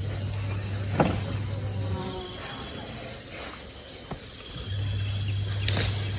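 Insects chirring steadily in high, even bands, over a low steady hum that drops out for a few seconds in the middle. A single sharp click comes about a second in.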